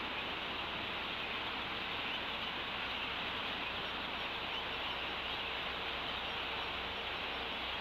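Steady, even hiss of background noise, with no calls or distinct sounds standing out.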